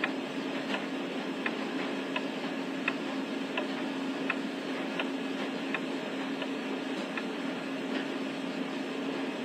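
Clock ticking evenly, about one tick every three-quarters of a second, over a steady low hum.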